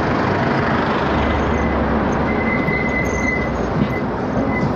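Wind rushing over the microphone and road and traffic noise while riding an electric bike in city traffic, with a thin high whine coming and going from about two seconds in.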